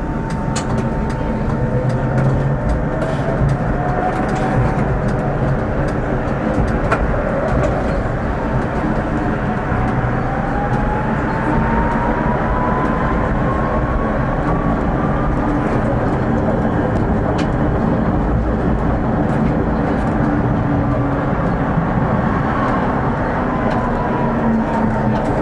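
Tram running along its track: a steady rumble of wheels on rails with scattered clicks, and a motor whine that rises slowly in pitch over about fifteen seconds as the tram picks up speed.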